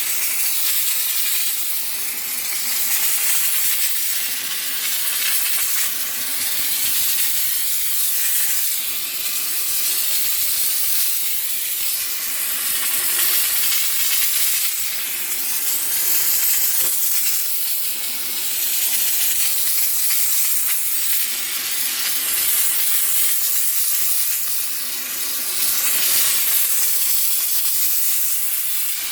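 Steam cleaner jetting steam at mold inside an air conditioner: a continuous hiss that swells and eases slightly every few seconds.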